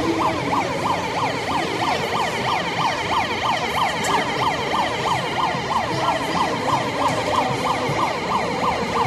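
Electronic siren sounding a fast yelp, its pitch sweeping up and down about three times a second.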